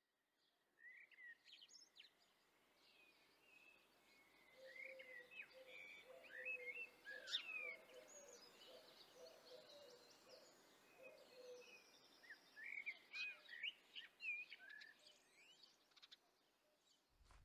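Faint birdsong: several songbirds chirping and whistling in short phrases, with a low call repeated in a run of short notes through the middle.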